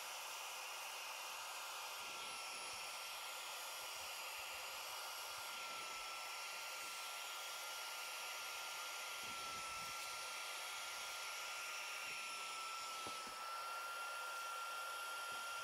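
Carpet extractor's vacuum motor running steadily with a high whine over a hiss of suction, as its upholstery tool is drawn across a wet cloth car seat. The whine dips slightly in pitch a couple of times.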